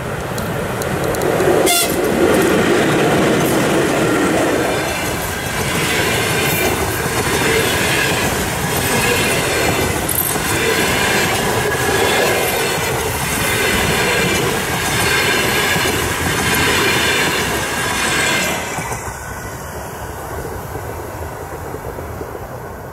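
ChS7 DC electric locomotive and its passenger coaches rolling past close by. A sharp knock about two seconds in as the locomotive draws level, then a loud rhythmic clatter of wheelsets over the rail joints as the coaches go by. The sound fades after about eighteen seconds as the train moves away.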